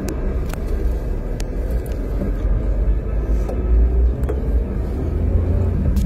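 Strong gusty wind buffeting the phone's microphone: a loud, steady low rumble of wind noise from a dust storm.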